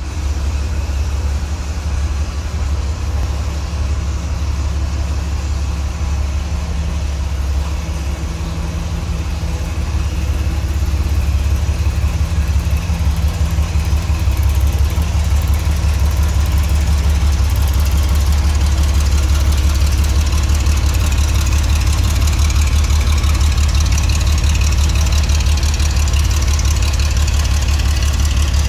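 1973 Porsche 911E's air-cooled flat-six engine idling steadily, growing a little louder about ten seconds in.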